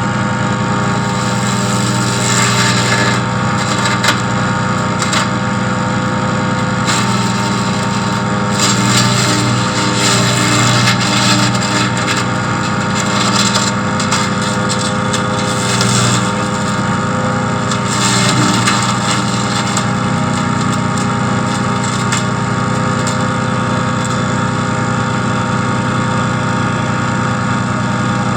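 14 hp wood chipper engine running steadily at a constant speed, with a few brief rougher, noisier stretches, around 3 seconds in, from about 8 to 11 seconds, and near 16 seconds.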